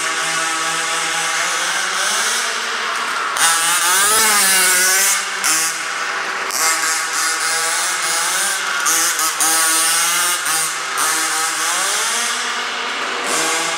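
Zenoah 29cc two-stroke engine with a Samba tuned pipe in an MCD W5 large-scale RC truck, revving up and down as the truck is driven. The loudest rev, climbing and then falling, comes about three and a half seconds in.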